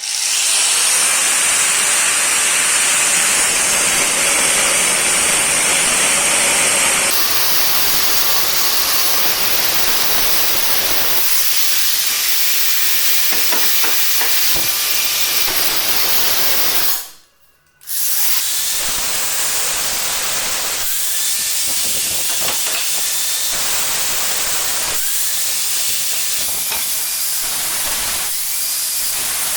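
A power tool grinding or cutting metal: a loud, steady, hissing rush that changes abruptly a few times and breaks off briefly about halfway through.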